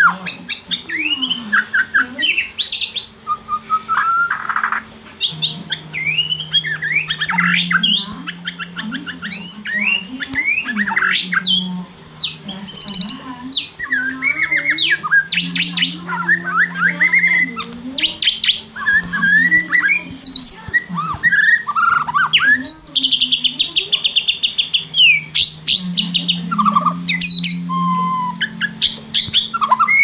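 White-rumped shama singing: a long, varied run of clear whistles, quick chirps and harsh squawky notes, with a fast rattling trill about two-thirds of the way through.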